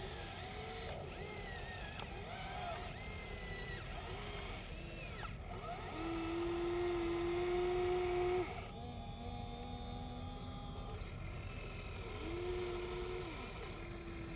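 Electric motors and gears of a Huina 1593 RC excavator whining as the boom, arm and bucket move through the sand. The pitch rises, holds and falls with each movement, with the longest and loudest whine in the middle.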